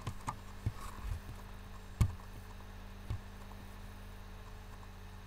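Steady low electrical hum on the microphone, with a handful of clicks and knocks from working a computer mouse and keyboard; the loudest knock comes about two seconds in.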